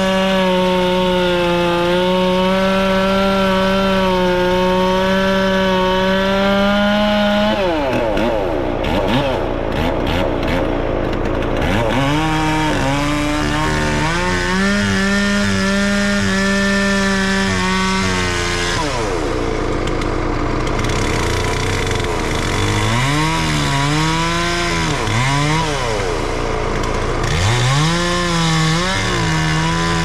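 Two-stroke chainsaw cutting into a Sitka spruce log. It holds at full throttle, eases off and wavers after about seven seconds, returns to full throttle, then is revved up and down repeatedly through the last ten seconds.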